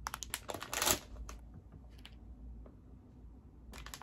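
Plastic candy pouch crinkling as it is handled: a flurry of crackles in the first second or so, then quieter, with crinkling picking up again near the end as the pouch is opened.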